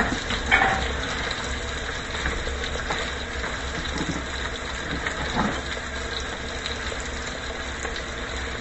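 Rib-eye steak frying in a skillet, sizzling steadily, with a brief clatter about half a second in.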